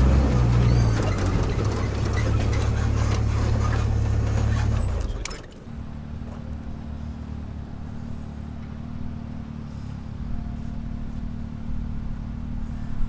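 Off-road vehicle driving over a rough dirt trail, heard from inside the cab: engine hum with loud road and gravel noise. About five seconds in this cuts suddenly to a quieter, steady low hum of a convoy of off-road vehicles, Jeeps and side-by-side UTVs, running slowly on the trail.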